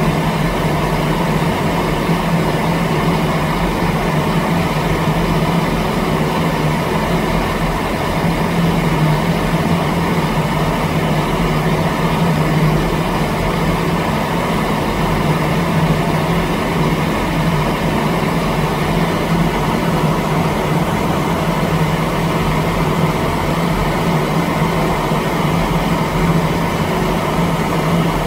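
Gas blowtorch flame burning steadily, a constant rushing noise with a steady low hum underneath.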